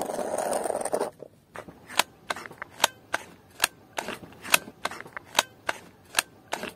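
A short hiss, then a run of sharp clicks, about three a second, from a hot glue gun being worked to lay a blob of glue on a wooden stick.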